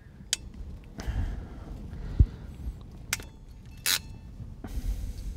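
A hand crimping tool at work, with handling noise and a few sharp clicks, one right at the start and two more around three and four seconds in, plus a dull knock a little after two seconds. The tool is an IWISS ratcheting DuPont crimper closing a DuPont connector pin onto a wire.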